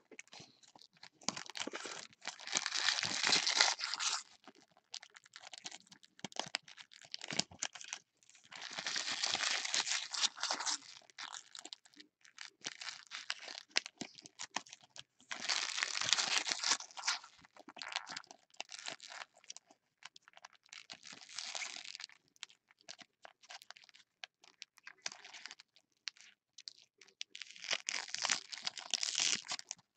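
Foil wrappers of Topps Chrome trading-card packs crinkling and tearing as gloved hands rip them open, in five bursts of one to three seconds each, with lighter rustling between.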